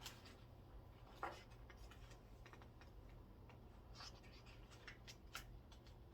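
Near silence: room tone with a low hum and a few faint rustles and clicks of a picture book's pages being handled.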